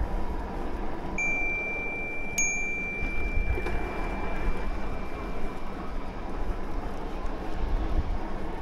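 Bicycle bell rung twice, about a second apart, the second ring fading out over about three seconds, over a steady low rumble of wind and riding.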